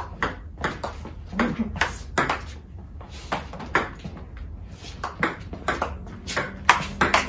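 Table tennis rally: the ball clicks sharply off the bats and bounces on the table in a quick back-and-forth, about three clicks a second. The player is looping topspin with a bat faced in Xiom Omega VII China Guang rubber.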